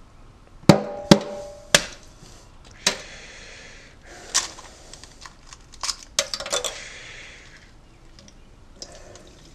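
Unhatched goose egg, found rotten, being cracked and pulled apart by hand over a stainless steel sink: a string of sharp cracks and knocks from the shell, with bits of shell dropping into the sink.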